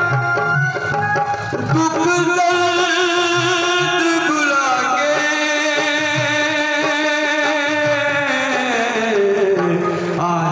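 Music from a Hindi devotional song: a steady drum beat under a melody of long held notes, which slide down in pitch about eight seconds in.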